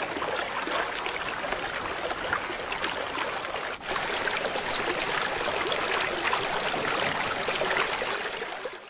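Muddy rainwater runoff flowing fast along a dirt track as a steady rushing wash, with raindrops hitting the water. There is a brief break about four seconds in, after which the rushing carries on.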